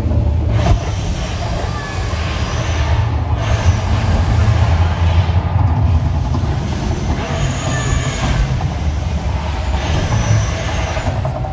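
Mirage volcano show eruption: a loud, steady deep rumble under a hissing roar that thins briefly twice, with crowd voices underneath.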